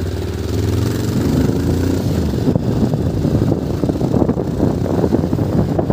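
Motorcycle engine idling steadily, then pulling away about two seconds in; its running turns rough and uneven, mixed with wind buffeting the microphone once the bike is moving.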